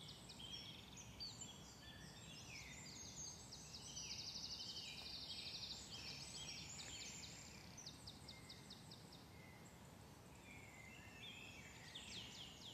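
Faint birdsong from several birds, many short high chirps and quick trills overlapping, over a faint low background hiss.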